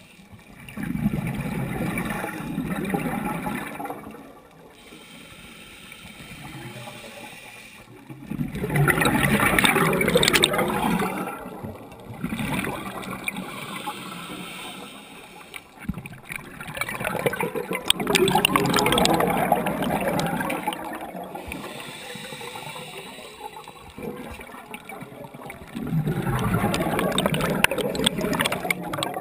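Scuba divers' exhaled bubbles gurgling from the regulator underwater, in four bursts of a few seconds each about every eight seconds with quieter breathing noise between.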